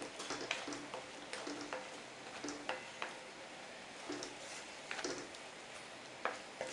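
Wooden spatula stirring chicken and masala in a metal kadai, knocking and scraping against the pan in irregular clicks, a few a second at times.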